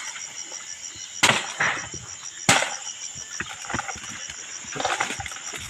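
Chopping blows into the trunk of a palm: two sharp chops about a second and a quarter apart, then a few fainter knocks, as the palm is cut to get at its heart. Insects chirp steadily in a fast, even pulse behind it.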